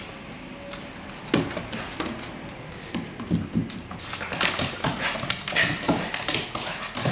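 A Shiba Inu puppy's claws clicking on hardwood floorboards as it bounces around, with its collar tag jingling. The clicks come thick and fast in the second half.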